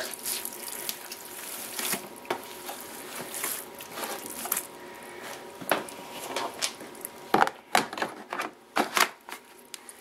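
Soaking-wet towels squelching and dripping as they are pushed down into the spin basket of a Panda B45 twin-tub washer. Near the end come several sharp plastic knocks as the basket's slotted hold-down cover is put in place.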